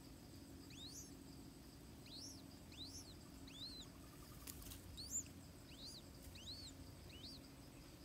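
Adult shikra calling as it comes in to the nest: a series of about ten high, thin notes, each rising then falling, about half a second apart, over a faint steady insect drone.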